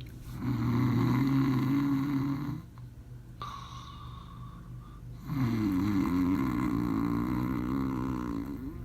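Snoring: two long, loud snores, the first about two seconds and the second about three, with a quieter, higher-pitched breath between them.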